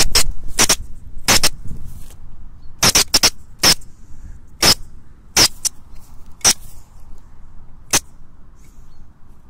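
A weasel caught in a metal box trap gives a string of short, sharp, high calls at irregular intervals, about a dozen in all, most of them in the first five seconds.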